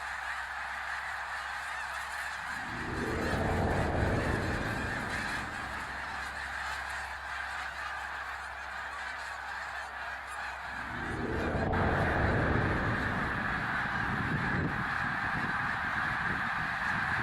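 Eerie horn-like drone: a steady hum with two deep rumbling swells, one about three seconds in and a longer one from about eleven seconds on.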